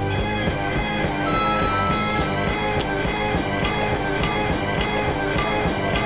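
Background music: an electronic dance track with a steady beat, in an instrumental stretch between its sung lines.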